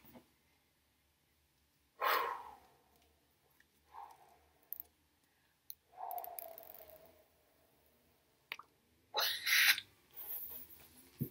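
A woman's excited wordless vocal sounds: breathy gasps, a drawn-out 'ooh' that falls in pitch about six seconds in, and breathy laughter near the end, each a separate short burst with quiet between.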